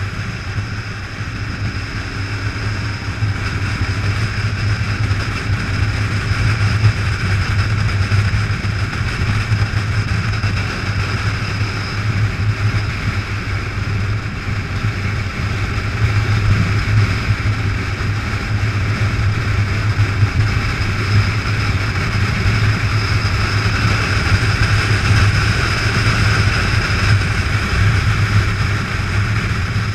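Motorcycle engine running at steady road speed, heard from the bike itself: a steady low drone under a rush of riding noise, rising a little in level about halfway through.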